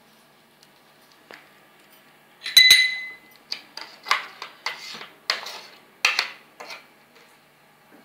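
A spoon strikes with one loud, ringing metal clink, then scrapes thick ground coconut chutney out of a mixer-grinder jar into a bowl in six or seven short strokes.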